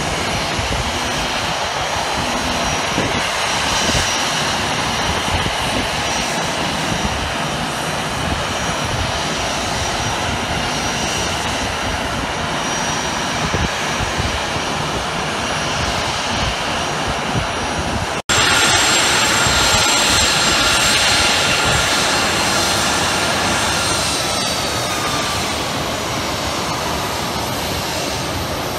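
Steady whine and rush of a Southwest Boeing 737's jet engines running at taxi power. The sound drops out for a moment about two-thirds of the way through, then returns louder, with whining tones that slide slightly lower near the end.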